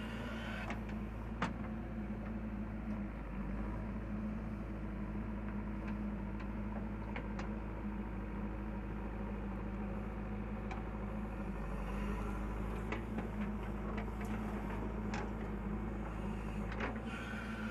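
JCB 3DX backhoe loader's diesel engine running steadily under load while the backhoe arm digs and swings, with a few short knocks from the bucket and hydraulic arm.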